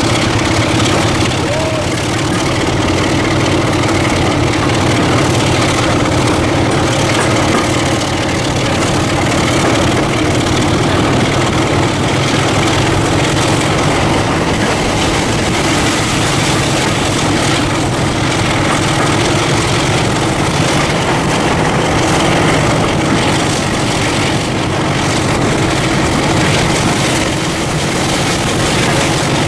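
Diesel locomotive engine running steadily at idle, an even low drone with no revving.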